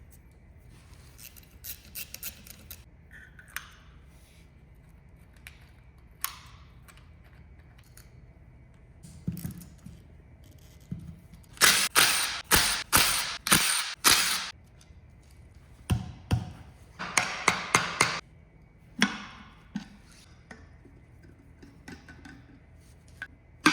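Work on an opened manual transmission: scattered clicks, then two runs of quick, sharp metallic knocks and clacks from the tools and parts being handled, the first starting about halfway and the second a few seconds later.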